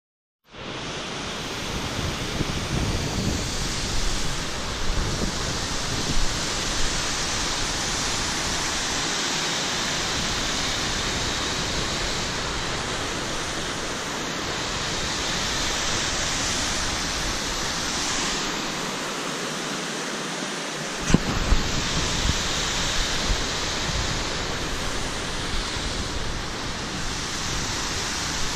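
Rushing water of a rocky mountain creek: a loud, steady hiss, with wind rumbling on the microphone that drops away now and then. There is a short knock about two-thirds of the way through.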